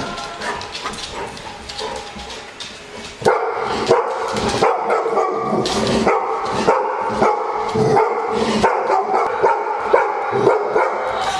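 Golden retrievers barking repeatedly, starting about three seconds in and going on at roughly two barks a second.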